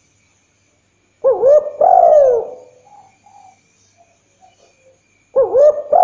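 Spotted dove cooing: a call of a couple of short rising coos ending in a longer falling coo about a second in, then the same call starting again near the end.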